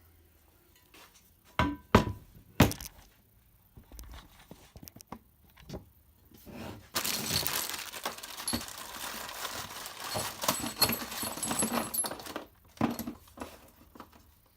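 A heavy cast iron table extension being fitted to a bandsaw table: a few loud metal clunks, then several seconds of scraping and rattling, and another clunk near the end.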